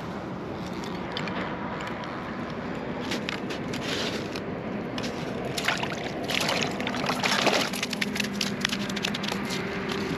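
Water splashing and sloshing in an ice-fishing hole as a hooked largemouth bass thrashes and is pulled up through it. The splashing grows busier after the halfway point.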